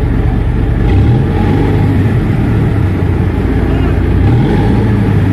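A tugboat's engine running steadily, a loud low drone heard from on its deck, with small shifts in its pitch about a second in and again near the end.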